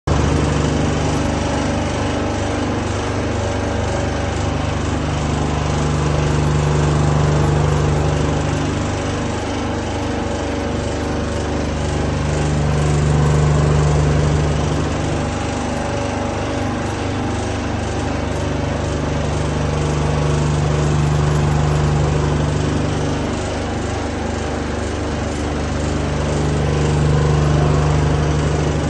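Boiler induced-draft (ID) fan running with an abnormal sound: a steady mechanical noise whose low hum swells and fades in a slow beat, about once every seven seconds.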